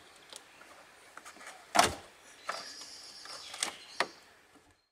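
Rubber window seal on a Peugeot 106 being peeled back by hand from the body around the rear window: a sharp snap about two seconds in, then a rasping stretch with a couple more snaps near the end.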